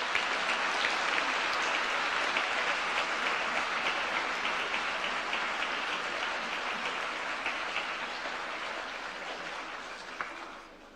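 Audience applauding in a large hall at the close of a speech. The clapping holds steady, then fades away over the last few seconds.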